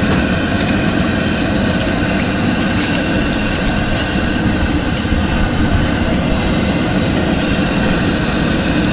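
Fritters deep-frying in a large wok of hot oil: a steady sizzle, mixed with a steady low roar of motorbike street traffic.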